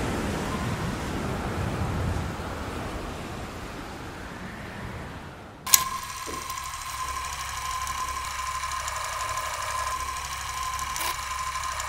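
The soundtrack fades out, then a sharp click about six seconds in starts an old film projector sound effect: a steady mechanical running sound with a high steady whine, a low hum and a couple of crackling pops.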